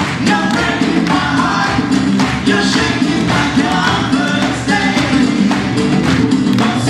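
Live acoustic folk-rock band playing: a djembe and a mallet-struck drum keep a driving beat under a nylon-string guitar and an accordion, with several voices singing in harmony.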